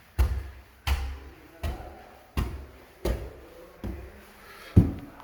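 A person's heavy footsteps, about seven even steps at roughly three every two seconds.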